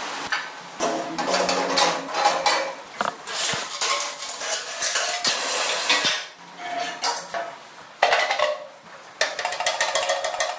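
Hand tools and steel parts clinking and clattering as the trike's pedal and axle hardware are fitted. The clinks come thick and fast, with short metallic rings, and ease off for a couple of seconds about six seconds in before starting again.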